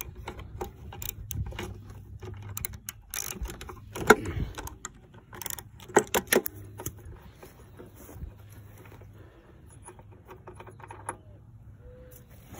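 Ratchet and socket clicking in irregular runs while unscrewing a spark plug from a small lawn mower engine, with a few louder metal clacks about four and six seconds in.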